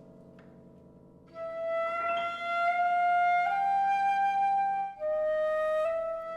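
Concert flute playing a slow melody of long held notes, entering about a second in over a soft held low accompaniment, with a short breath break near five seconds.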